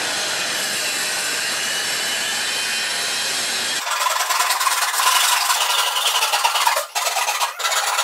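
Bosch plunge-cut circular saw on a guide rail cutting wooden profile boards, a steady whine. About four seconds in it gives way to a Japanese pull saw cutting the boards by hand in quick rasping strokes.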